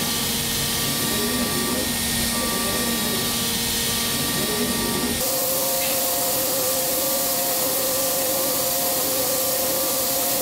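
DMG 5-axis CNC machining centre milling an aluminium cylinder head with a tapered end mill: steady hissing cutting noise with a high whine from the spindle. About halfway through, the sound shifts to a lower steady whine.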